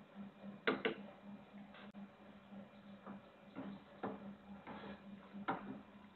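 Metal ladle clinking and scraping against the side of an aluminium cooking pot while turning fish in broth: a handful of sharp, irregular knocks, the loudest pair about a second in. A faint steady hum runs underneath.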